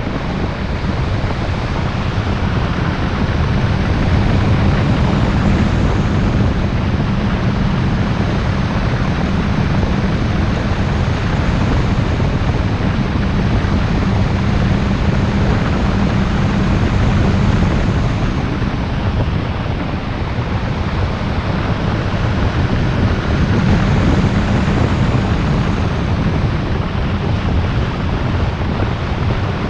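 Car driving at speed: a steady low rumble of tyres and engine under a rushing wind noise on the microphone. It eases briefly about two-thirds of the way through, then builds again.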